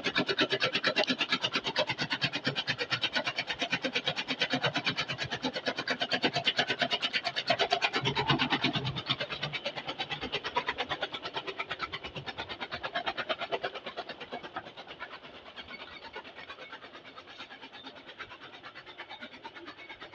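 Chaff cutter chopping maize stalks, running with a fast, even chopping pulse. It gets quieter after about twelve seconds.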